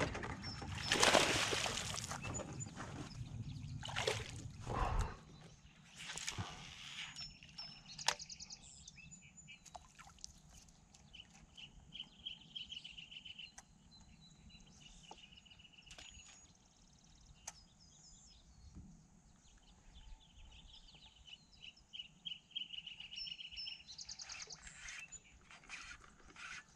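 Small birds singing fast trills, a run of rapid repeated notes heard a few times, over a quiet outdoor background. A few loud, brief noises come in the first five seconds.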